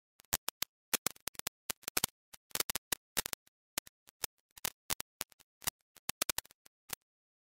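Irregular sharp clicks, a few to several a second, with dead silence between them, stopping shortly before the end.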